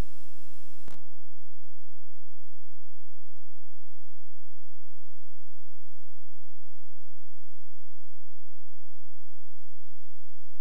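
Steady electrical hum with a stack of even overtones, the noise of a VCR playing the blank start of a VHS tape. A single click about a second in, where the hum changes.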